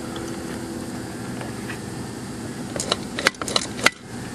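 About six sharp clicks and knocks in quick succession, starting a little under three seconds in, over a steady low background hum.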